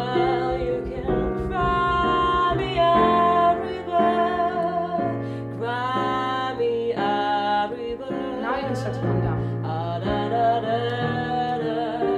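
A woman singing a melody in long held notes while accompanying herself with chords on a digital piano.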